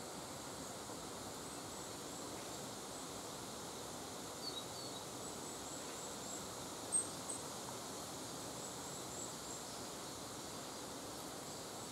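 Quiet woodland ambience: a steady soft hiss with faint, high, thin bird calls now and then. The clearest call comes about seven seconds in.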